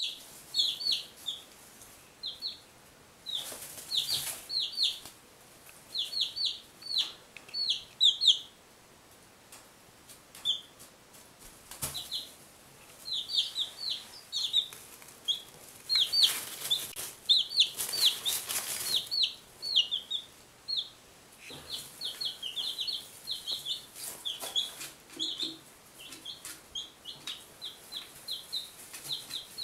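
Week-old chicks (Buff Orpingtons, a Barred Rock and a Golden Laced Wyandotte) peeping in quick runs of short, high, falling cheeps, with a lull near the middle. A few stretches of rustling come in between the peeps.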